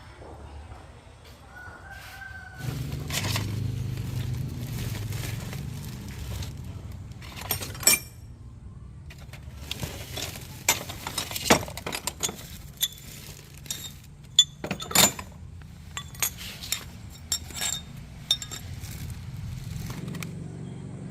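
Irregular sharp clinks and knocks over a low steady hum.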